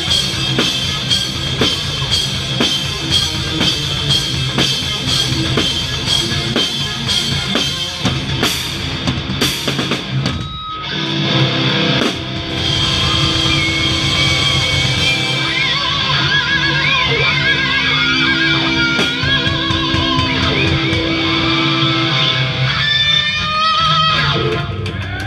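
Heavy metal band playing live, heard up close from the drum kit. Fast, dense drumming under distorted guitars for about the first ten seconds. The drums then mostly stop and the guitars ring on in long, wavering, bending notes, with a few scattered cymbal hits, as the song winds down.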